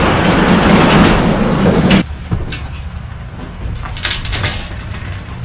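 Sectional garage door rolling up its metal tracks, a loud rattling rumble that cuts off sharply about two seconds in. After that a lower rumble with a few short knocks.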